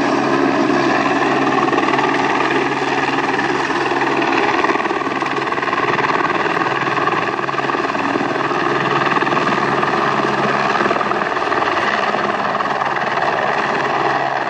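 Light helicopter flying past low overhead, its engine and rotor making a steady, loud drone.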